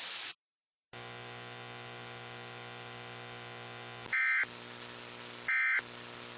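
Emergency Alert System end-of-message data bursts: two short, harsh digital warbles about a second and a half apart, around four and five and a half seconds in. Under them is faint static hiss with a steady hum, broken by a brief moment of silence near the start.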